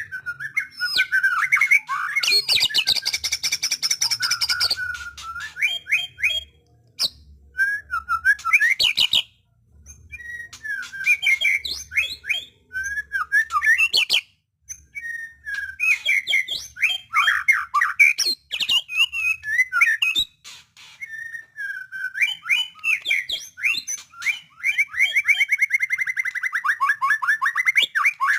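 White-rumped shama (murai batu) singing in full voice: a long run of varied whistled phrases broken by short pauses. A harsh, rasping passage comes a few seconds in, and a fast, even trill comes near the end.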